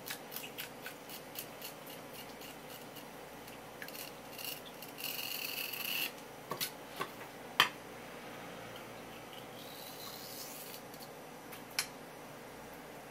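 Knife cutting along a conger eel on a wooden cutting board: light ticks of the blade at first, then two stretches of scraping as the blade draws along the eel. There are a few sharp knocks, the loudest about seven and a half seconds in.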